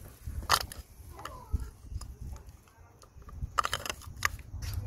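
Metal pick tool clicking and scraping against an oil filter housing cap as an old O-ring is pried out of its groove, in short scattered clicks with a quick cluster near the end.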